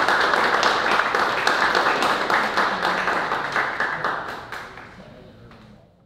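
Audience applause: many people clapping together, thinning and fading out over the last two seconds.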